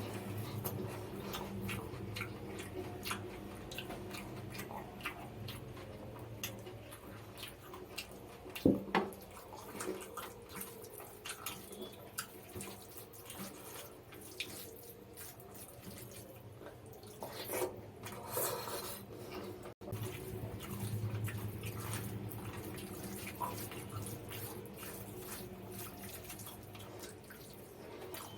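Wet, close-up eating sounds of mutton biryani with raita: chewing and lip smacks with many small wet clicks, one louder click about nine seconds in.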